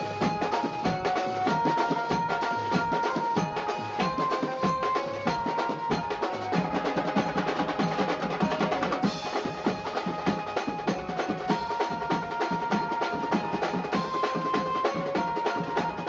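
Background music: fast, dense drumming under a melody of held notes that change pitch every second or so.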